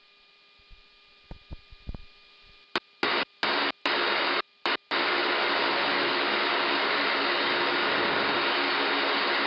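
Military aircraft engines running: a steady, loud rushing noise with a faint low hum under it. It comes in as a few brief bursts that cut on and off from about three seconds in, then holds steady from about five seconds in. Before that there is only a faint hum.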